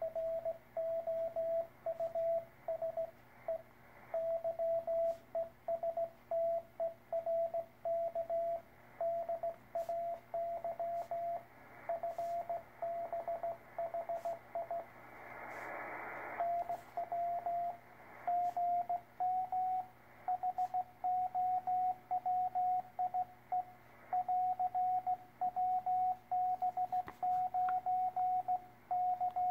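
Morse code (CW) on a communications receiver: a single mid-pitched beep keyed on and off in dots and dashes over steady receiver hiss. A burst of static interrupts it about fifteen seconds in. After about eighteen seconds the beep sits a little higher in pitch.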